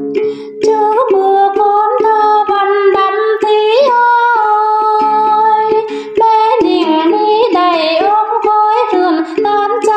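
Female hát then singing in a slow melody with long held, wavering notes, over the plucked đàn tính lute. After a few plucked notes at the start, the voice enters about a second in.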